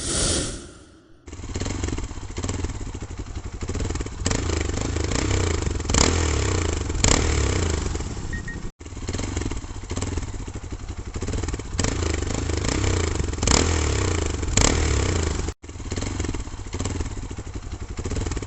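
Hero XPulse 200's single-cylinder engine running through an aftermarket Grease House exhaust, starting about a second in, with repeated short rises in revs. It drops out for an instant twice.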